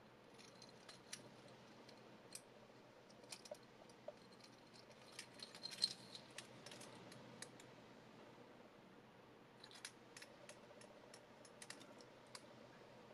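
Stainless-steel bracelet of a LIGE wristwatch clinking and clicking while the watch is handled and put on the wrist. Scattered small metallic clicks, with a quick cluster of them about six seconds in and a few more near the end.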